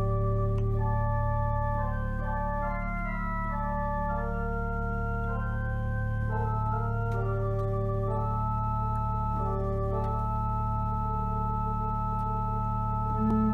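Two-manual church organ playing a prelude on an Easter hymn: sustained chords and moving upper lines over a low bass note held throughout.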